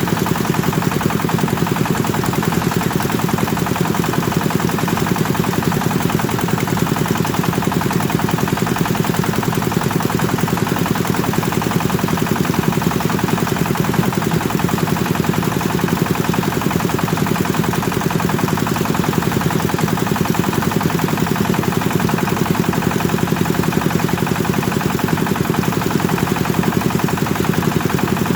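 Kubota engine running steadily, driving a rice thresher, with a rapid, even chugging.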